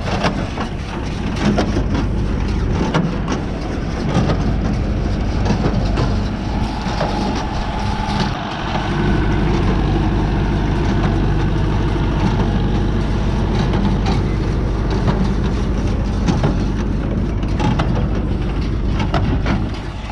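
Tractor engine running steadily, with scattered clicks and knocks over it.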